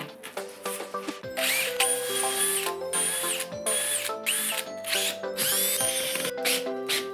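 Power drill running in about six short bursts, each whining up to speed and winding back down, over background music.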